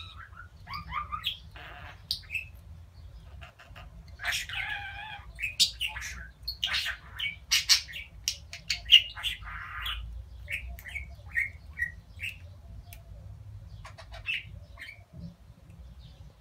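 Budgerigars chattering: a run of chirps, squawks and scratchy warbling, busiest in the middle, then a few short separate chirps near the end.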